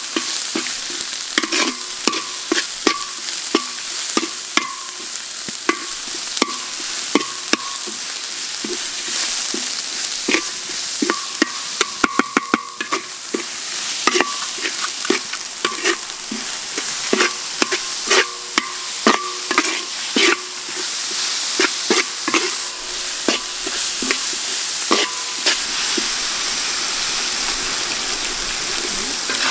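A metal spatula scrapes and knocks repeatedly against a large metal wok as a chopped spice paste fries with a steady sizzle, the pan giving a short ring with many strokes. There is a quick run of taps about halfway through, and the strokes thin out near the end while the sizzling carries on.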